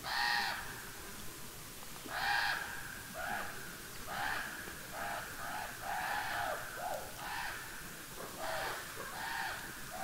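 Crows cawing repeatedly: about a dozen short, harsh caws, coming every half second to a second, some overlapping, with the loudest at the start and about two seconds in.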